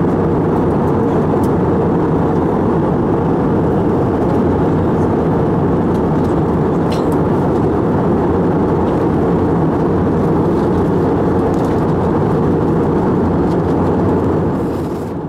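Steady cabin noise of a jet airliner in flight, heard from a window seat: an even rush of airflow and engine noise with no change in level.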